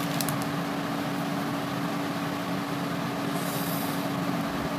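Steady background hum: a constant low tone under an even hiss. There are a few faint clicks at the start and a brief soft rustle a little past the middle.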